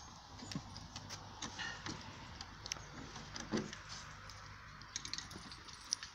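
Faint scattered clicks and rustling of a horse stepping about on dry leaves and twigs, with a slightly louder knock about three and a half seconds in.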